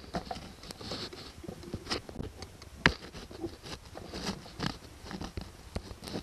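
Irregular small metal clicks, taps and scrapes as a locking pin on an outboard motor is worked and bent over by hand, with one sharper click about three seconds in.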